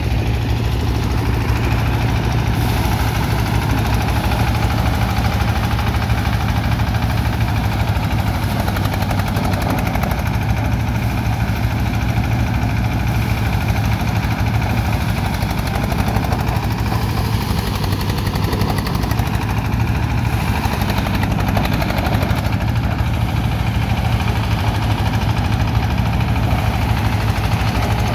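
Engine-driven paddy thresher running steadily while rice sheaves are fed into its threshing drum: a constant low engine hum under the noise of the drum and straw.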